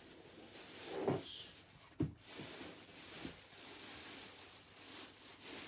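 Rummaging among shoes and bags on the floor: soft rustling and knocking, with one sharp knock about two seconds in.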